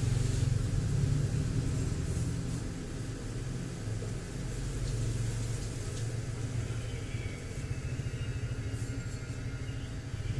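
A steady low mechanical hum with a faint hiss over it and a few faint ticks.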